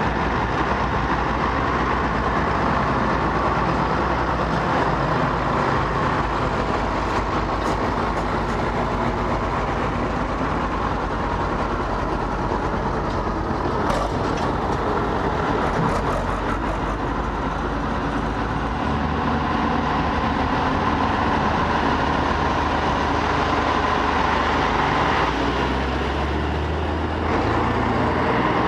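Big Schlüter farm tractors' diesel engines running as the tractors drive slowly past one after another. A deeper, stronger engine note comes close near the end.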